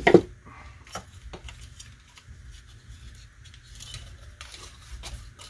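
Hard plastic parts of a 1995 Tonka X-Wing toy clicking and rubbing as the wing assembly is pried apart by hand. There are a couple of sharp clicks about a second in and a cluster of clicks near the end.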